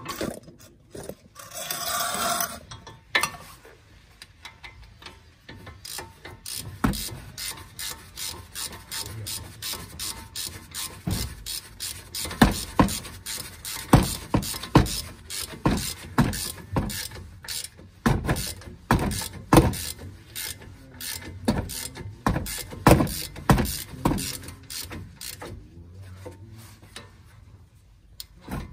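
Hand socket ratchet clicking in quick strokes, in runs with short pauses, as bolts are turned. A brief rasping hiss about two seconds in.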